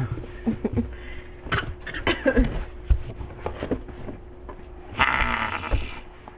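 Short, squeaky vocal noises from inside a box, then a rustling scrape about five seconds in.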